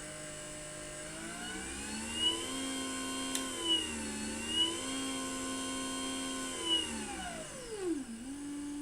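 CyclonePro sectional garage door opener's motor driving the door on its force-learning run after the up arrow is pressed: a whine that rises in pitch as it gets going, runs steady with a brief dip midway, then slows and drops in pitch as the door nears its limit, ending on a lower steady hum.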